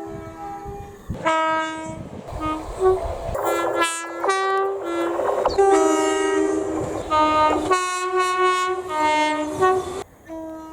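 Train horns sounding a rapid string of short two-tone blasts, high and low notes alternating, in several clips joined by abrupt cuts.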